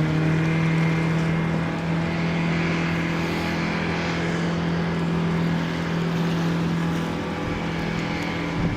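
Engine of a small log-pond work boat running at a steady speed, with a constant droning note.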